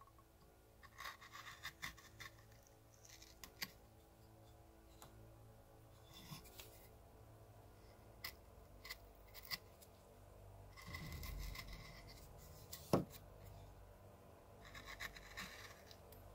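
Hand carving gouge and carving knife cutting into cottonwood bark: short bursts of scraping, slicing cuts with scattered small clicks, and one sharper knock late on as the loudest event.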